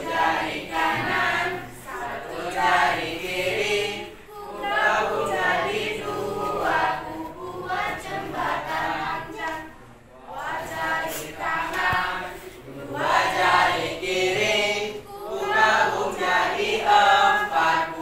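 A class of schoolchildren singing an action song together in unison, in phrases with short breaks about four and ten seconds in.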